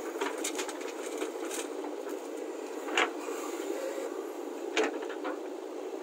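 JCB 3DX backhoe loader working: a steady diesel engine drone, with two sharp knocks from the bucket and boom, one about three seconds in and one near five seconds.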